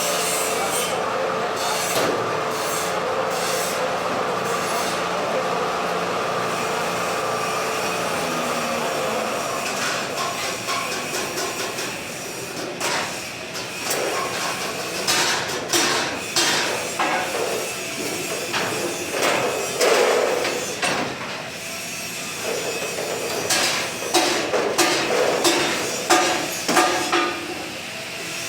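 A power tool's motor runs steadily and dies away about eight seconds in. Then comes a long run of irregular, sharp hammer knocks on metal.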